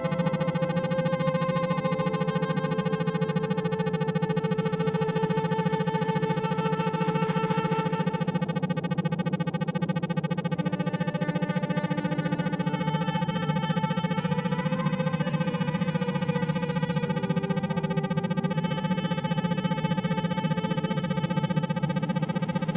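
Synthesizer drone music: sustained synth tones shift slowly over a steady low hum, with a fast, even pulsing running through the whole sound.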